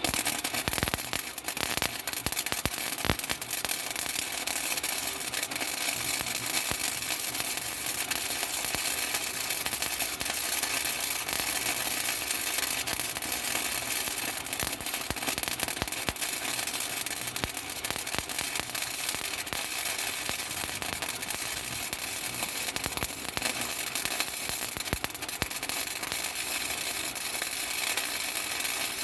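Electric arc welding: a steady, dense crackle like frying bacon as a long bead is laid on the truck's steel body or frame.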